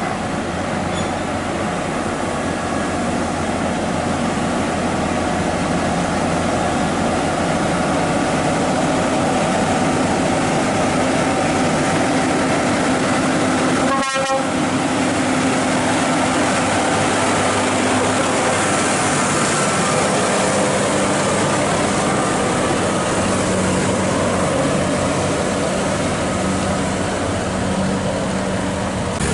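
Scania truck's diesel engine pulling a heavily loaded lowboy trailer up a hill, loud and steady. A single sharp click comes about halfway through.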